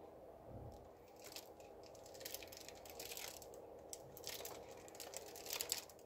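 Plastic piping bag crinkling and crackling as it is squeezed, in quick irregular crackles starting about a second in.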